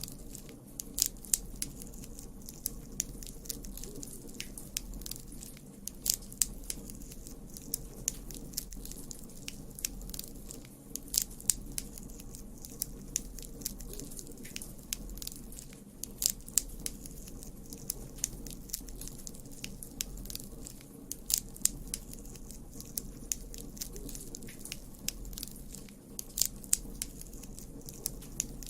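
Campfire crackling: burning wood giving irregular sharp pops and snaps, several of them louder than the rest, over a steady low background.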